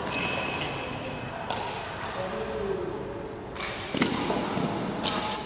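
Echoing badminton hall: athletic shoes squeaking on the wooden court floor, three sharp smacks of rackets hitting shuttlecocks about a second and a half in, near four seconds and near the end, and indistinct voices in the background.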